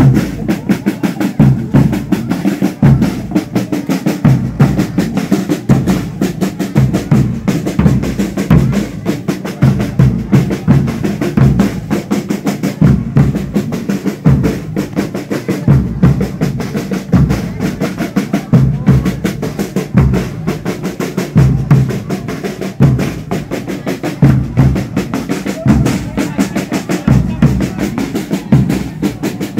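Snare drums and a bass drum playing a fast, unbroken beat, with rolls.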